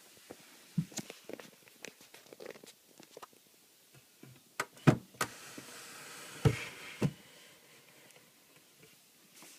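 A wooden chest of drawers being handled: scattered light taps and clicks, then a few sharp knocks about five seconds in. A short sliding, rustling sound of a drawer follows, ending in two more sharp knocks near seven seconds.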